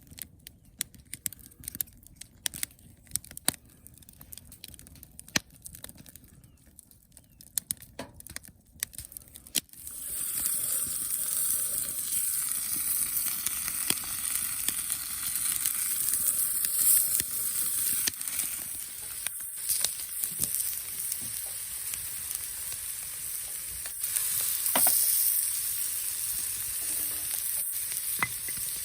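A few scattered small clicks and taps, then, about a third of the way in, food begins sizzling loudly in hot oil and keeps up a steady frying hiss.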